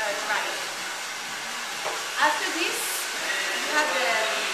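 Steady rushing blow of a salon hair dryer running, with women's conversation heard over it.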